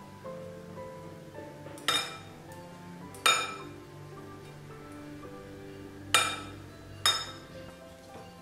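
Soft background music with held notes, over which four sharp glassy clinks ring out: a hand kneading rice-flour dough knocks its ring or bangle against the glass mixing bowl.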